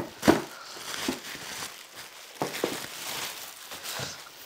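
Bubble wrap and plastic packaging crinkling and rustling as a pickleball paddle is unwrapped by hand, with several sharper crackles; the loudest comes about a quarter second in.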